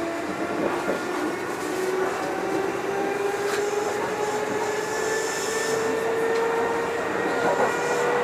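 Kintetsu 2430 series electric train running, heard from inside the passenger car: a steady rumble of wheels on rail with a motor whine whose pitch rises steadily as the train gathers speed.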